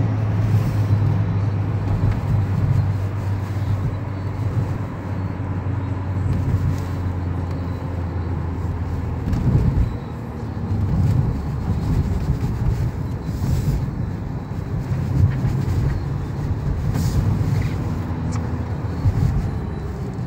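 Car engine and road noise heard inside the cabin of a moving car. For the first half it is a steady low engine drone; after about nine seconds it becomes an uneven low rumble.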